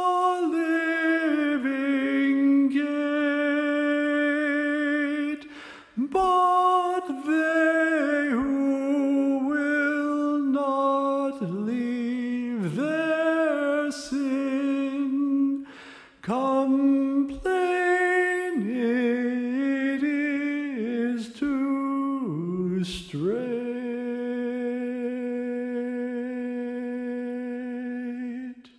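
Singing of a minor-key psalm tune, phrase by phrase with short breaks, some notes sliding down low. It ends on a long held note that cuts off abruptly near the end.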